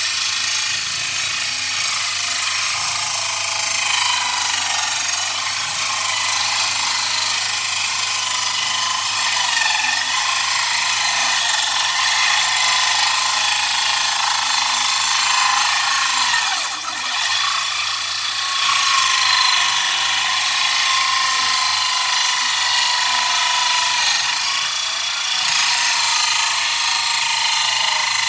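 Small sawmill ripping a teak plank lengthwise: a loud, steady high-pitched saw noise with a whining tone that wavers in pitch, easing briefly a little past halfway.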